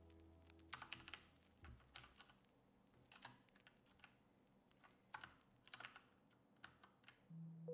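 Computer keyboard keys tapped faintly in short irregular clusters of clicks while cells are entered in a spreadsheet. Faint background music fades out early and comes back near the end.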